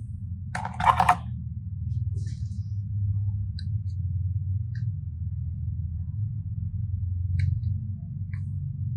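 Hands handling small plastic bags of clay: a short crinkling rustle about a second in, then scattered faint clicks and taps over a steady low hum.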